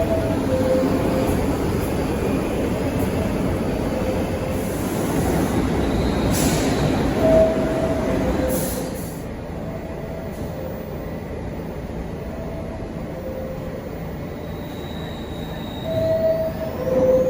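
NYC Subway R62A car's two-tone door chime, a higher note followed by a lower one, sounding about seven seconds in and again near the end over the steady noise of the subway train. A thin rising whine comes in near the end.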